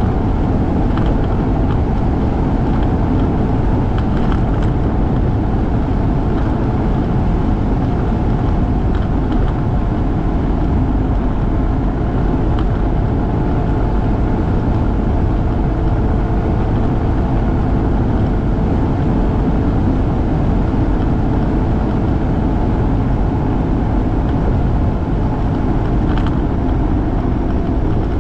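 Motorcycle engine running steadily at cruising speed, mixed with the rush of wind over the bike-mounted microphone.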